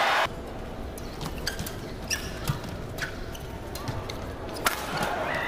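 Badminton rally: sharp hits of rackets on the shuttlecock and short squeaks of court shoes, with one loud hit near the end. A burst of crowd noise cuts off just after the start, and crowd noise rises again near the end.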